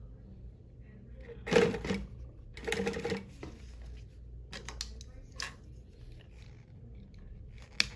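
New-Tech GC-0303D direct-drive walking-foot industrial sewing machine stitching slowly through heavy twill fabric: a few separate stitch strokes, the two loudest about a second apart, then lighter clicks, over a faint low steady hum.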